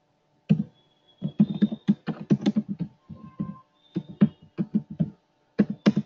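Computer keyboard being typed on: quick runs of keystroke clicks with short pauses between runs, starting about half a second in.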